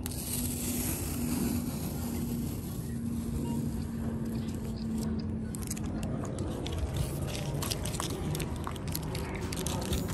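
Blue painter's tape being peeled off a car's vinyl wrap and crumpled by hand, a crinkling crackle that gets busier in the second half, over a steady low rumble.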